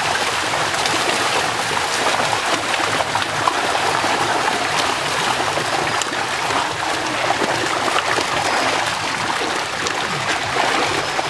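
Many fish thrashing and leaping in shallow water held by a net: a steady rush of splashing, broken by many small sharp splashes.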